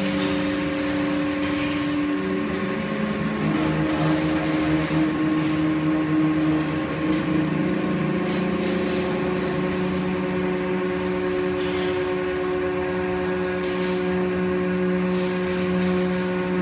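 Hydraulic power pack of a large scissor lift running, a steady hum with several held tones, as it pumps the cylinders to raise a platform loaded with two 1830 kg test weights. The tones shift pitch a little about three and eight seconds in, and a few light clicks and knocks sound now and then.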